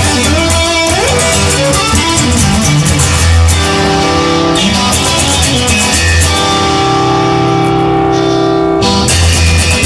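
Band music with guitar, bass and drums playing an instrumental passage with no singing; held chords ring from about six seconds in and break off just before the end.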